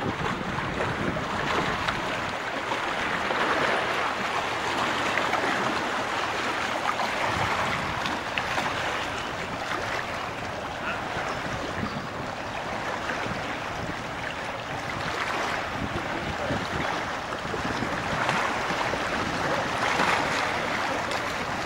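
Wind buffeting the microphone over the wash of small waves on a shallow sandy shore: a steady rushing noise that swells and eases.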